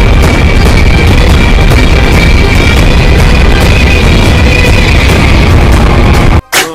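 Notification tone made of a loud music excerpt with heavy bass and a steady held high note, cutting off abruptly near the end.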